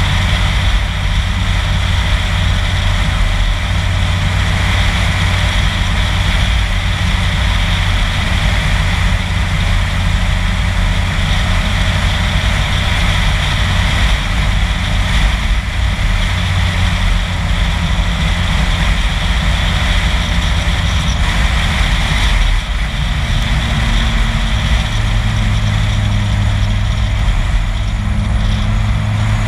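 Car driving at road speed: a steady engine drone under road and wind noise. About three-quarters of the way through, the engine note shifts and grows stronger.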